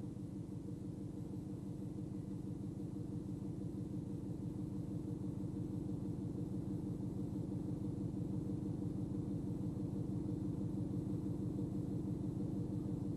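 A steady low mechanical drone with a fast, even throb, like an engine running, slowly growing louder.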